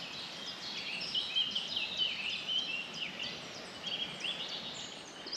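Several songbirds singing together in spring woodland, a steady run of quick, high warbling phrases and short notes over a soft background hiss.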